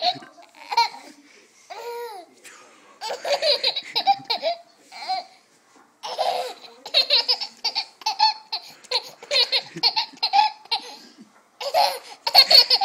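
A toddler laughing hard in repeated bouts of rapid giggles, with short breaks between the bouts.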